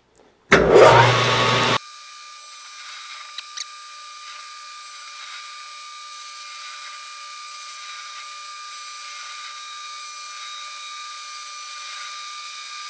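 A 12x36 import metal lathe starts up about half a second in and then runs steadily with a thin, even whine of several fixed pitches while it faces the end of a steel square tube. Two small clicks come a few seconds in.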